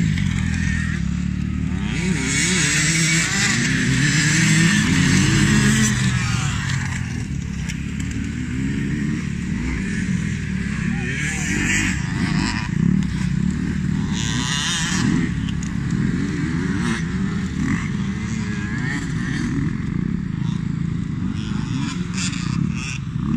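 Dirt bike engines revving up and down as the motocross bikes ride round a dirt track. At times more than one bike can be heard. They are loudest a few seconds in.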